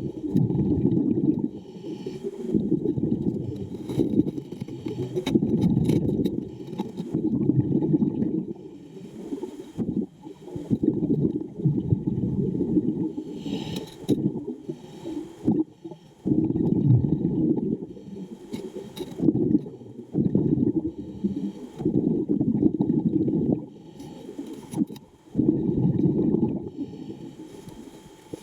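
Muffled underwater rumbling and bubbling, coming in repeated surges a second or two long with quieter gaps between them.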